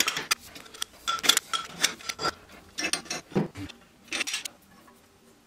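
Metal hand tools clinking and scraping on brass pipe fittings as a pipe wrench and a cross-shaped sanitary wrench loosen old threaded unions: a quick, uneven run of sharp clicks and knocks that stops about four and a half seconds in.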